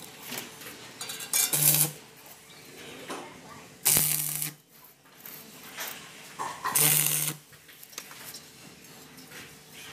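Electric arc welding: three short tack welds on a steel frame, each a crackling burst of about half a second with a low hum under it, about a second and a half in, about four seconds in, and again about seven seconds in.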